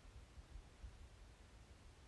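Near silence, with faint, irregular low rumbling bumps.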